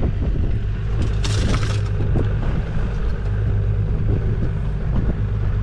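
Outboard motor idling with a steady low hum, under scuffs and knocks from a ladyfish being handled on the boat's fiberglass deck. A brief scraping rush comes about a second in.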